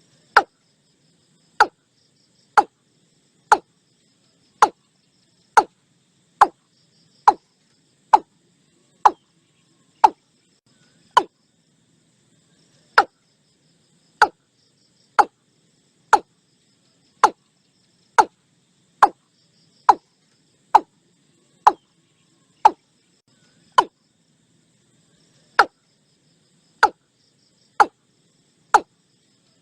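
Watercock calling: a short, sharp note repeated about once a second, with a couple of brief pauses, over faint insect chirring.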